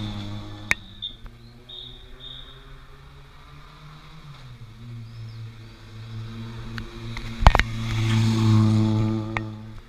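Peugeot 208 rally car's engine running as it drives slowly up and passes close by, rising a little in pitch partway through and getting louder to a peak as it goes past, then fading near the end. A short, sharp double bang comes just before it passes.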